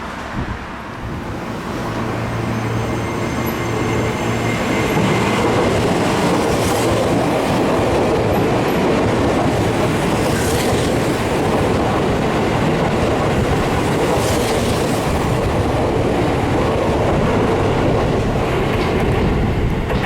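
Seibu Shinjuku Line electric train running past the station platform, its wheel and rail noise building over the first few seconds, staying loud, and starting to fade right at the end.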